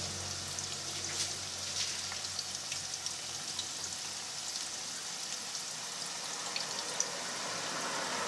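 Fresh-cut potato sticks deep-frying in hot oil in a wok, early in the fry while they are still pale. The oil makes a steady sizzle with scattered small pops and crackles.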